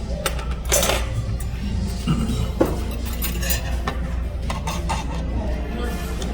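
Dishes and cutlery clinking in short, scattered knocks, over steady background music.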